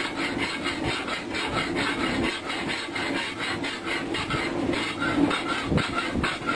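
Metal being hammered at a forge in a fast, even rhythm, about five strikes a second, over a steady low hum.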